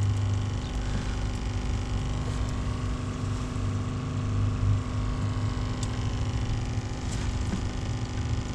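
Car engine running with a steady low hum.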